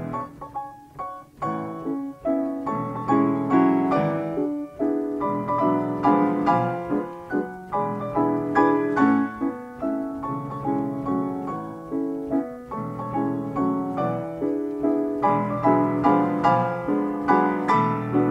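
Ampico player piano playing an 88-note paper music roll: a continuous run of struck piano notes and chords from the roll-driven action, a little softer in the first couple of seconds.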